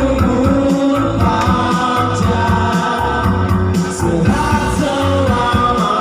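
Loud dance music with singing, a steady beat and heavy bass.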